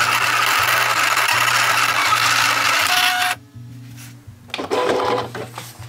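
Silhouette Cameo vinyl cutter cutting a design: its motors drive the blade carriage and rollers with a loud, harsh whirring that stops about three seconds in. A shorter burst of the same machine noise follows near the end.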